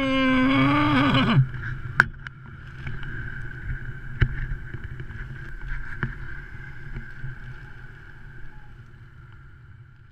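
A man's long held shout that drops in pitch at its end, in the first second and a half, then steady wind noise on the helmet camera's microphone as he flies under his open parachute, with a couple of sharp knocks, fading out near the end.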